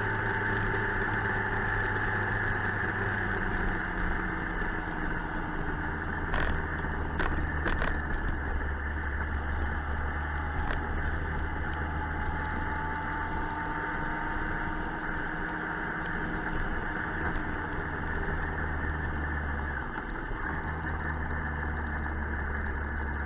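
Suzuki GSX-R 1000 inline-four engine running steadily on the road, its note shifting a couple of times as speed changes, with a few faint clicks.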